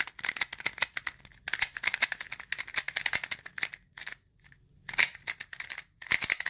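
Unlubricated plastic 2x2 speed cube being turned rapidly, giving a fast run of plastic clicks and clacks with short breaks after about four seconds: the sound of the cube before its pieces are lubed.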